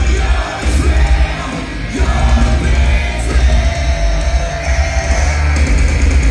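A live heavy metal band playing loud, with distorted guitars, heavy bass and kick drum, and yelled vocals. One note is held for about two seconds in the middle.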